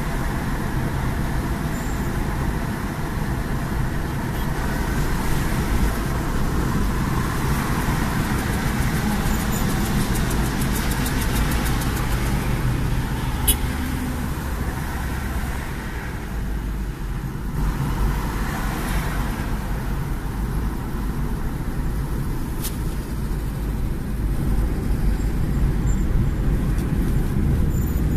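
A car driving in city traffic, heard from inside the cabin: a steady low rumble of engine and road noise, with one sharp click about halfway through.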